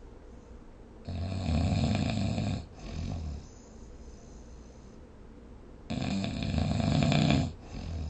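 A person snoring: two long, rattling snores about five seconds apart, each followed by a brief, softer breath sound.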